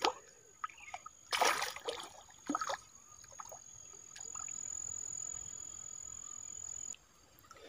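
Small splashes and water sloshing as a fish flaps in the shallow water of a raised lift net, in two short bursts about one and a half and two and a half seconds in. Later comes a steady faint hiss with a thin high whine for about three seconds.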